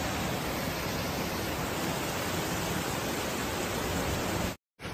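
Steady rush of torrential rain and floodwater running down a street, a dense even hiss with no let-up; it cuts off abruptly near the end.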